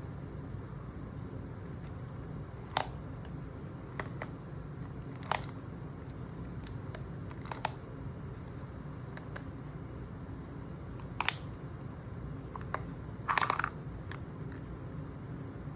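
Small clicks and taps from a maze puzzle box as its pieces are moved, coming singly a second or more apart with a quick cluster near the end, over a steady low hum.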